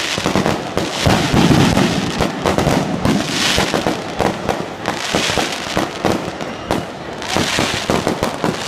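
Firecrackers going off in a dense, irregular string of sharp cracks and pops, with several short spells of hissing.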